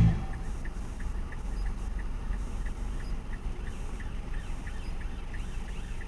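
Emergency-vehicle siren wailing faintly, its rising and falling pitch becoming clearer over the last couple of seconds, over a low car-cabin rumble. A faint steady ticking runs about three times a second.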